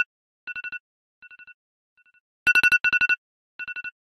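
Electronic telephone ringtone: short trills of rapid high-pitched pulses, each trill repeated fainter and fainter like an echo, with a fresh loud trill about two and a half seconds in.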